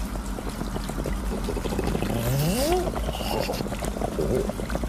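Cartoon gas water heater (geyser) running with a steady crackling rumble, as it heats water for a bath. A short rising tone sounds about halfway through.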